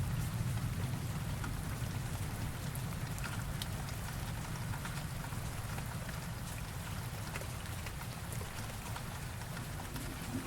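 Steady rain falling, with scattered close drop ticks, over the low rumble of thunder dying away slowly.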